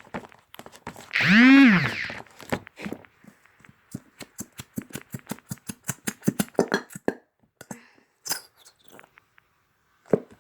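A loud, pitched squeal about a second long that rises and falls in pitch, followed by a run of quick, sticky clicks and squelches from fluffy slime being stirred, several a second, thinning out near the end.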